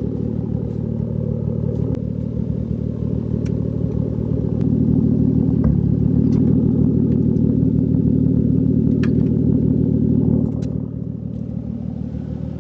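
1JZ VVTi inline-six engine idling steadily, getting louder about four and a half seconds in and dropping back near ten seconds, with a few light clicks over it.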